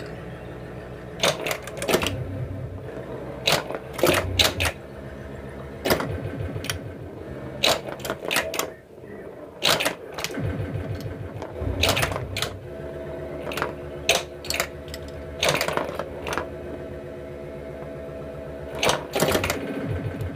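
Williams Alien Poker pinball machine in play: irregular sharp clacks of solenoids firing (pop bumpers, flippers, targets) as the ball scores, over the game's steady electronic background tones.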